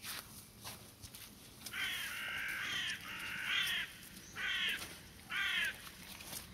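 A crow cawing: four harsh caws, the first two drawn out and the last two shorter. Under them are footsteps of people walking on a wet, muddy trail.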